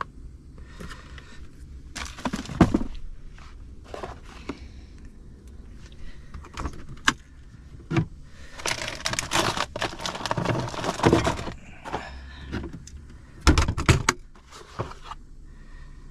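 Objects being handled: scattered clicks and knocks, with a longer stretch of rustling and crinkling about nine to eleven seconds in and a few louder knocks near the end.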